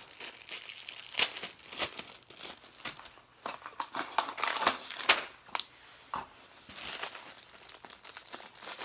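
Small cardboard blind box and clear plastic packaging being crumpled, folded and torn by hand: irregular crinkling and crackling in bunches, with a few sharper crackles.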